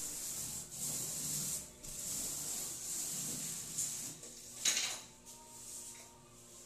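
Paint roller on an extension pole rolling paint onto a ceiling: a rubbing swish in two long strokes, then a single sharp knock about two-thirds of the way through.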